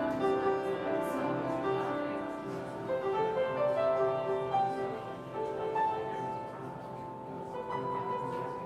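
Jazz quartet of tenor saxophone, piano, double bass and drums playing live, with the full band coming in louder right at the start after a quieter lead-in.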